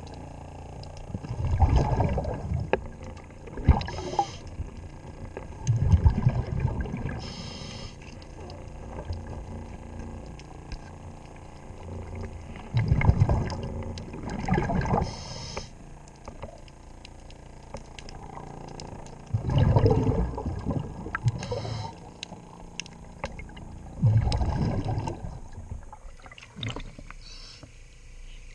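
Scuba diver breathing through a regulator underwater: a short hiss on each inhale and a rumble of bubbles on each exhale, roughly one breath every six seconds. Faint clicks sound in between.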